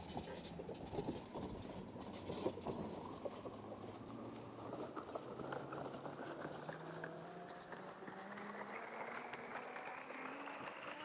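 Footsteps walking through woodland, irregular crunching steps most distinct in the first few seconds, over a low hum that rises slowly and steadily in pitch.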